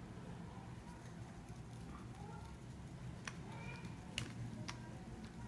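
Faint clicks and taps of the clip fan's plastic housing parts being handled and fitted together, three sharper clicks in the second half, over a steady low hum.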